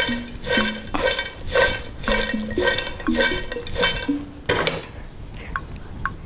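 Background music with a steady beat and bass line, with a clatter of a covered pot of popcorn being shaken about four and a half seconds in.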